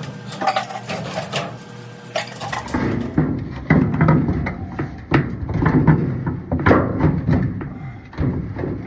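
Irregular knocking and clattering of metal and plastic washer parts and hand tools being handled during disassembly of the washer's drive. About three seconds in, the knocks become duller and heavier.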